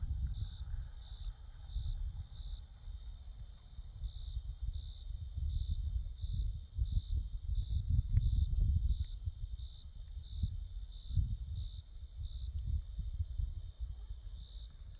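Night insects calling: a high chirp repeating about three times a second over a fainter, continuous higher trill. An uneven low rumble on the microphone is louder than the insects.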